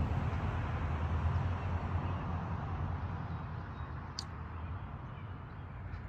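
Outdoor background rumble, steady and slowly fading, with one short high chirp about four seconds in.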